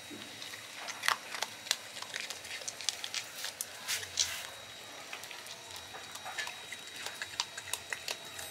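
Asian palm civet crunching dry cat-food kibble: irregular sharp crunches and clicks, with a burst of louder ones about a second in and again about four seconds in.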